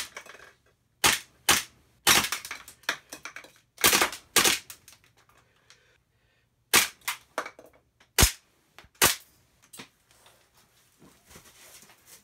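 Airsoft pistol firing single sharp shots, about ten in uneven groups with a pause of about two seconds in the middle, the shots ending a few seconds before the close; only faint small noises follow.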